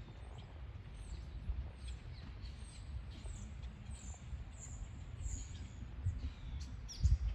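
Small birds chirping repeatedly in short high calls over a steady low outdoor rumble, with a couple of loud low thumps near the end.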